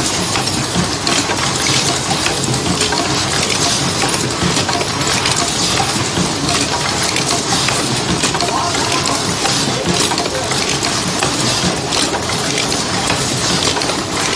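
Automatic artist-brush assembly machine running: a dense, steady clatter of rapid small metallic clicks from its conveyor and assembly stations.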